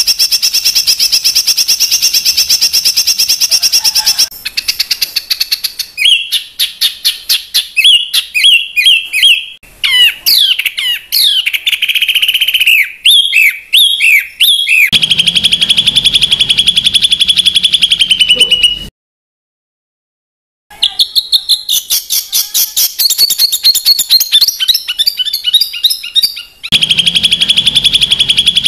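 Recorded songbird song used to train competition birds: dense, harsh rapid-fire trills and chattering notes, in spliced segments that change abruptly, with a short silent gap about two-thirds of the way through.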